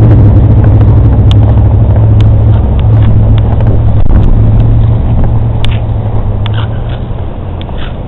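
Engine running with a steady low hum that fades away over the last couple of seconds, with a few faint clicks.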